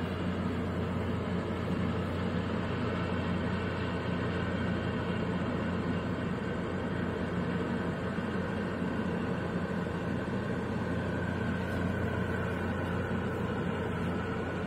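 Steady low drone of ship engines: the harbour tug pushing against the container ship's hull and the ship itself, a constant hum with no breaks.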